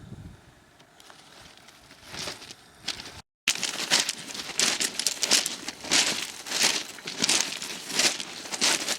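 Walking footsteps crunching on a rough path, about three steps every two seconds, starting after a brief dropout about three seconds in.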